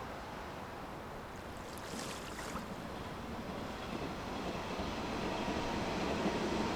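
A steady low rumble mixed with a wash of noise and a faint steady hum, slowly growing louder, with a brief hiss about two seconds in.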